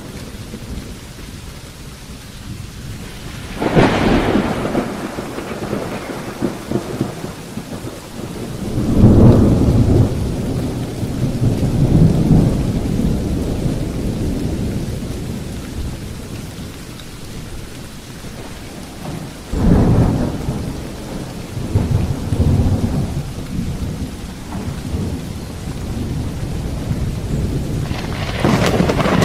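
Steady rain with four peals of thunder. Each peal starts with a sharp crack and rolls off into a long, low rumble; the loudest comes about nine seconds in.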